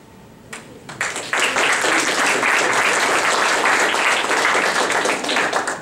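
Audience applauding: a couple of scattered claps, then full applause from about a second in that fades out just before the end.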